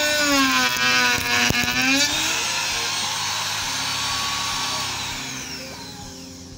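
Guangming Tool 440 W wood trimmer (compact router) with a Roman ogee bit cutting a profile along the edge of a jati Belanda pine board, its high motor whine dipping and recovering in pitch under load. About two seconds in it comes off the wood and winds down, the whine falling in pitch and fading.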